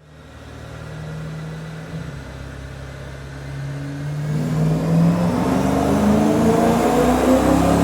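BMW E92 M3's S65 V8 on a chassis dyno, sounding through an Akrapovic Evolution titanium exhaust. It runs steadily at low revs, then from about four seconds in the revs climb and it grows louder as a dyno pull begins.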